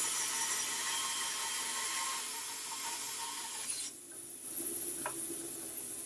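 Grizzly G0555XH 14-inch bandsaw resawing a 10½-inch-wide block of ash: the steady hiss of the blade cutting through the wood stops suddenly about four seconds in as the blade leaves the cut. The saw then runs on freely with a lower hum.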